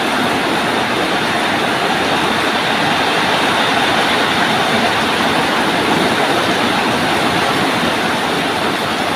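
Rain falling steadily, an even, dense hiss.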